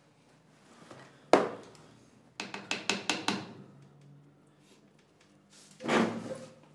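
A single sharp knock on a hard surface about a second in, then a quick run of about eight light taps. Near the end comes a hard, half-second snort through the nose.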